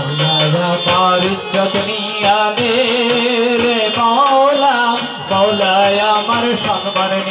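Bengali folk song played live: a man singing through a microphone over harmonium melody and a steady drone, with a hand drum and a jingling tambourine keeping a steady beat.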